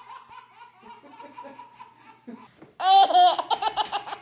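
Baby laughing: softer rhythmic giggling, then a sudden burst of loud, rapid laughs about three seconds in.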